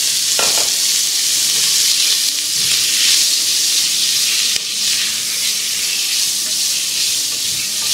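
Diced beef sizzling as it fries in hot bacon fat in a stainless-steel pressure cooker pot: a steady high hiss, with a few faint scrapes as a black slotted spoon stirs the meat.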